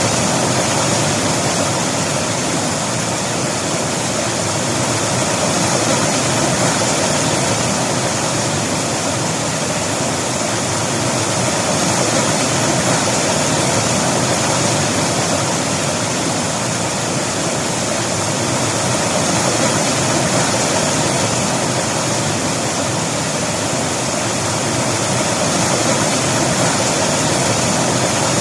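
River water rushing and splashing over rocks, a steady full noise that swells and eases slightly every few seconds.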